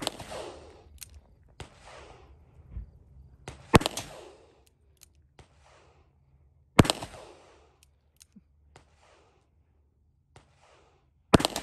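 Revolver shots from a 3-inch .357 Magnum revolver firing .38 Special in single action: four loud shots a few seconds apart, each trailing off in a short echo, with a couple of fainter pops between them.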